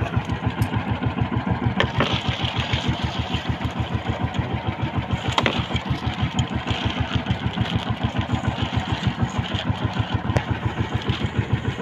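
Small engine of an outrigger fishing boat running steadily at idle, a rapid even putter, with a few short sharp knocks on top.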